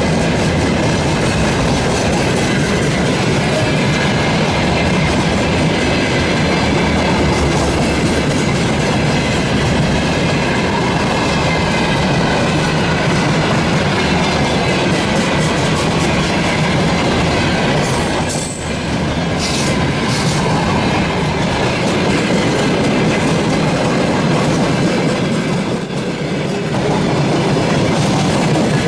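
Freight train wagons rolling past close by, a steady loud clatter of wheels over the rails with clickety-clack and faint wheel squeal, dipping briefly twice.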